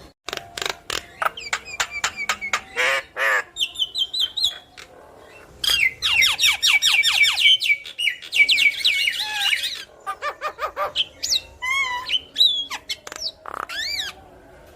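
Javan myna (jalak kebo) in full song: a rapid, varied string of clicks, quick chattering note series, a harsh squawk, and whistled notes that rise and fall in pitch, with brief pauses between phrases.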